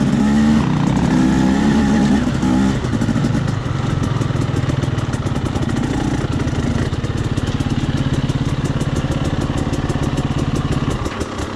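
Husqvarna enduro dirt bike's engine, heard from on the bike: the pitch rises and falls on and off the throttle for the first few seconds as it slows, then settles into a steady idle with an even, rapid pulse.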